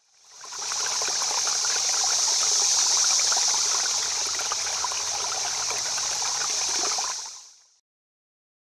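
Running, trickling water, a steady rush with fine splashy detail that fades in over about a second and fades out about seven seconds in.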